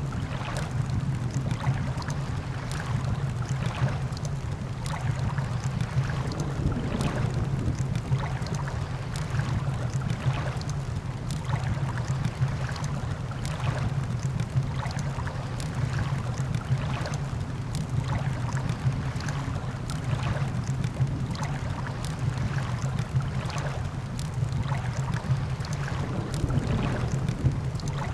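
Campfire crackling in frequent sharp snaps over a steady low rumble of surf and wind.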